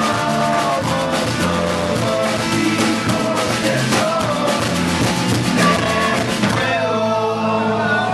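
Live band music with a drum kit keeping a busy beat under pitched instruments. About seven seconds in, the drumming stops and held notes ring on as the song closes.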